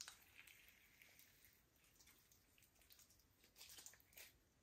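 Slime being worked by hand: faint, scattered small clicks and pops, in a cluster at the start and another toward the end.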